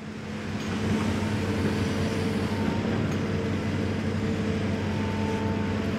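Excavator's diesel engine running at a steady pitch, fading in over about the first second.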